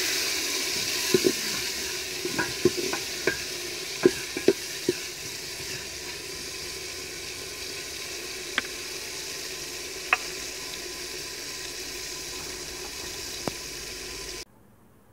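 Chopped tomatoes and green chillies frying in hot ghee with onions in an aluminium pot, a steady sizzle. A wooden spoon stirs and knocks against the pot's side several times in the first few seconds, then taps only a few more times. The sizzle cuts off suddenly near the end.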